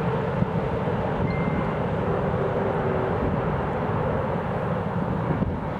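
Jet airliner engines: a steady rumble with a faint whine running under it.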